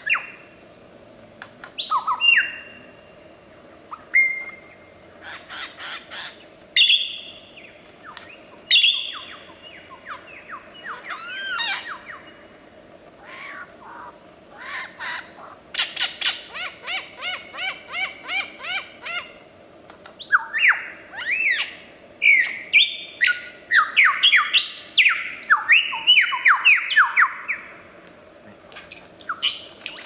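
Superb lyrebird singing a varied medley of mimicked calls: sweeping whistles and chirps, a run of evenly repeated notes at about three a second, then a loud, fast series of sweeping whistles in the second half.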